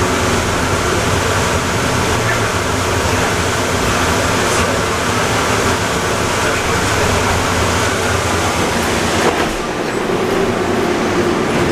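Airport automated people mover train running, a steady rumble with hiss; about nine seconds in the low rumble drops away.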